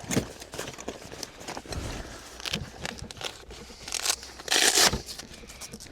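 Metal wrenches clinking as they are handled in a fabric wrench roll, with cloth rustling. A louder scrape of fabric comes about four and a half seconds in.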